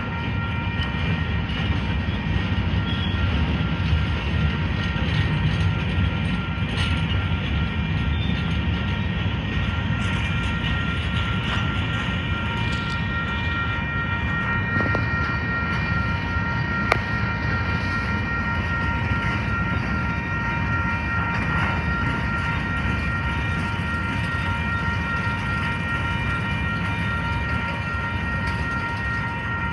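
Freight train of covered hopper cars rolling by with a steady low rumble of wheels on rail. Steady high ringing tones from the grade-crossing warning bell run throughout.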